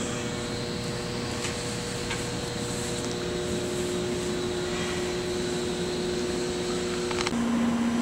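Steady mechanical hum and hiss of machinery in a plant equipment room, with a couple of faint steady tones. About seven seconds in it cuts off abruptly and a different, lower steady hum takes over.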